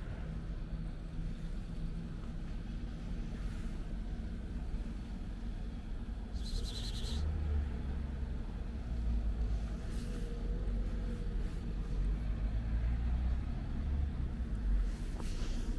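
Steady low outdoor rumble, with a short high-pitched squeak or call about six and a half seconds in.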